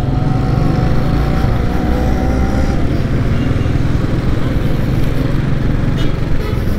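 Small motorcycle engine running amid street traffic noise, a steady dense rumble.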